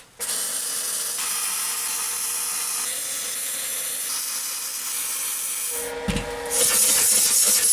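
Flux-core MIG welding: the arc of a Telwin Maxima 160 welder crackling and sizzling steadily as a bead is laid on steel. It starts abruptly, shifts near the six-second mark, then runs louder to the end.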